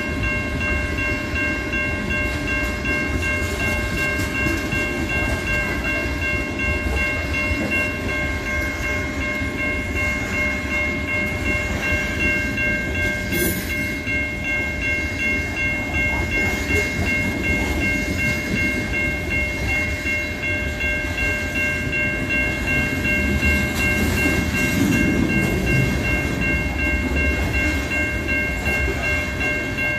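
Freight train cars rolling past on the track, a steady loud rumble of wheels on rail, with a steady high-pitched ringing tone held over it.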